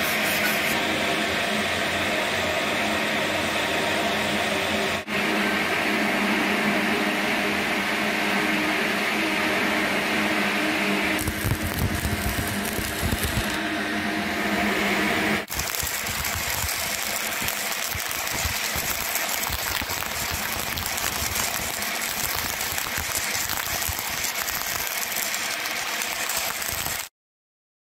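Electric arc welding: a steady crackling, buzzing arc that briefly breaks off about 5 and 15 seconds in and stops abruptly near the end.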